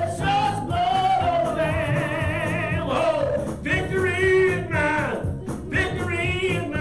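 Gospel-style singing: a voice holding long notes with vibrato and sliding pitch, over a steady low backing.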